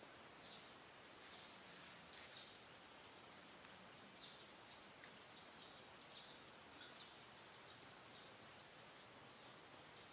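Faint outdoor background: a steady high hiss with about a dozen short, high chirps scattered irregularly through it.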